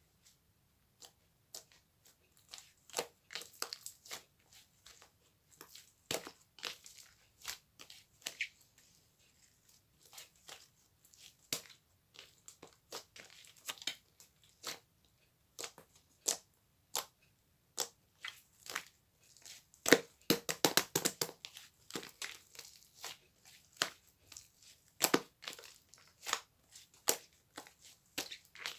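Irregular crinkling, crunching and tearing sounds from something being handled close up, in scattered clicks with a dense flurry about two-thirds of the way through.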